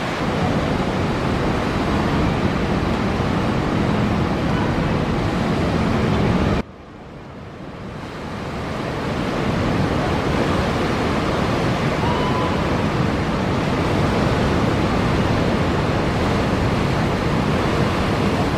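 Steady rush of ocean surf breaking. About a third of the way in it cuts out suddenly and then swells back up over a few seconds.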